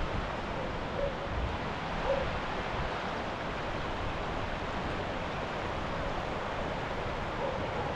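Steady hiss of falling rain, with low wind rumble on the microphone and a couple of soft thuds about one and two seconds in.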